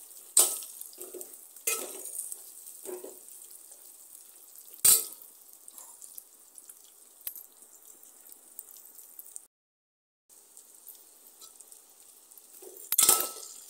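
Steel ladle knocking and scraping against an aluminium pot as stuffed capsicums are turned in hot oil: a handful of separate sharp clinks, the loudest about five seconds in. The sound cuts out completely for under a second just before ten seconds in.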